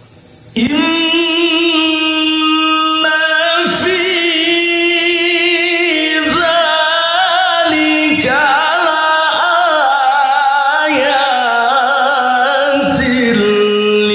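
Male qari reciting the Quran in melodic tilawah style into a microphone. The voice comes in about half a second in with a long held note, then moves into wavering, ornamented runs with short breaks for breath.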